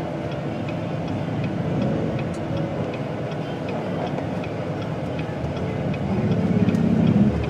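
Car driving, with steady road and engine noise heard from inside the cabin and a light, regular ticking about two to three times a second. A louder low buzz swells near the end, then drops away.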